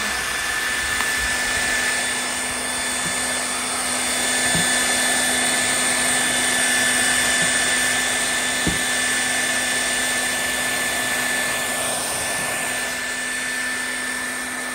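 Handheld blow dryer running steadily: a constant rush of air with a steady high motor whine.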